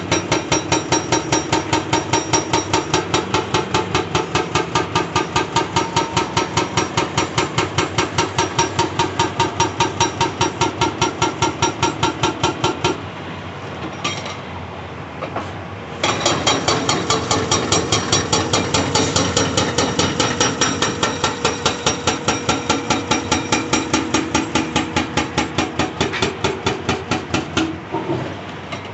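Hydraulic breaker on a CAT 349E excavator hammering rock in a rapid, even train of blows. It stops for about three seconds midway, then resumes and stops again just before the end, with the excavator's engine running underneath.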